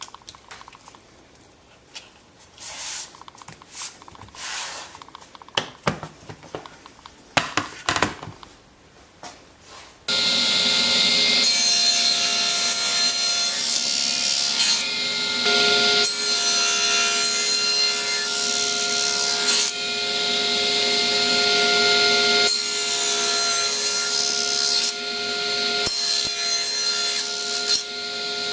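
Scattered rustling and handling noises, then about ten seconds in a power saw starts suddenly and runs steadily with a humming motor tone, cutting wood.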